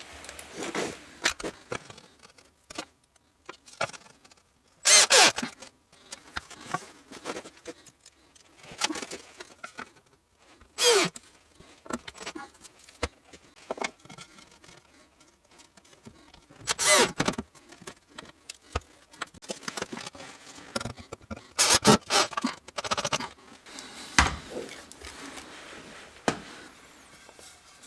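Short bursts of a cordless drill running, four louder ones about six seconds apart, among scattered knocks and scrapes of wooden blocks and tools being handled.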